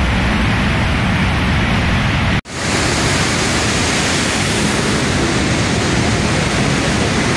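Loud, steady rushing noise of water pouring out of the Tarbela Dam spillway under high pressure. It cuts out for a moment about two and a half seconds in, then resumes.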